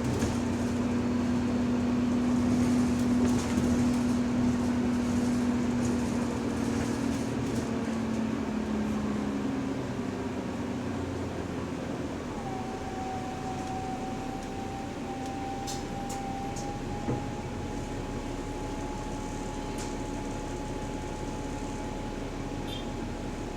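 Inside a moving city bus: steady engine, air-conditioning and road noise. A strong drivetrain whine slowly falls in pitch and fades over the first ten seconds. About halfway, a thinner, higher whine sets in and creeps slightly upward: the subtle, weird differential noise of this bus.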